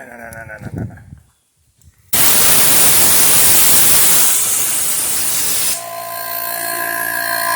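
Desktop computer powering up: its fans start with a sudden loud rush of air about two seconds in, then near the end settle to a slightly lower steady hum carrying several whining tones.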